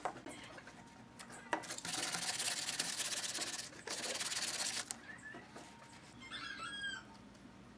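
Sandpaper rubbed by hand along a bent laminated pine strip, in two spells of quick back-and-forth strokes, about two seconds and then one second long, smoothing the freshly glued wood.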